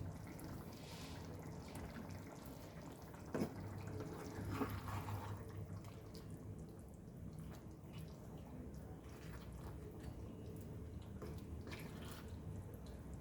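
Chicken curry gently bubbling in the pan, small pops and drips over a low steady hum, with a single knock about three seconds in.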